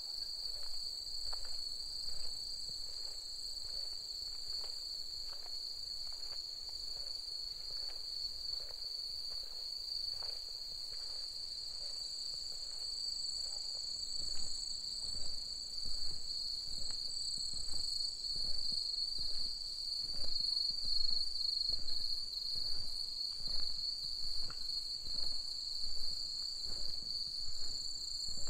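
Night insects chirring in a steady high-pitched chorus, with a second, higher band above it. Walking footsteps tap along at about two a second and grow more distinct in the second half.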